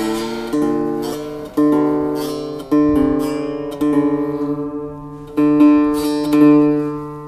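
A-style octave mandolin strummed on its open strings about once a second, each chord ringing and dying away, while a tuning peg is turned: the instrument is being tuned up.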